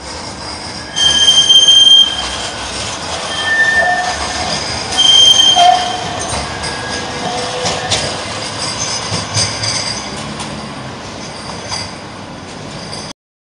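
Bombardier M5000 tram's steel wheels squealing on curved street track as it passes close by: two loud, high, steady squeals of about a second each, one about a second in and one about five seconds in, with fainter squeals between them. The rumble of the passing tram fades afterwards.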